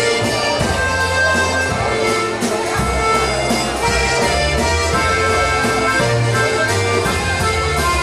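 Live polka band playing a waltz, led by a button box accordion, with held chords and a bass line moving under it.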